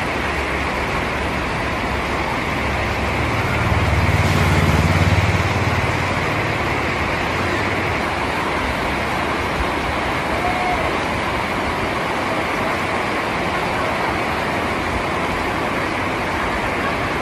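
Steady rain falling, an even hiss. About three seconds in, a low rumble swells and fades away over a few seconds.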